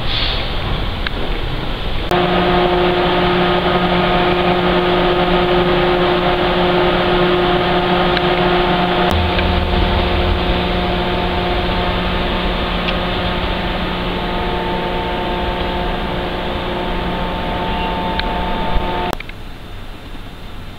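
Steady multi-tone hum of a train standing at a station, with its on-board equipment running. The hum starts abruptly about two seconds in and cuts off near the end, just after a single click.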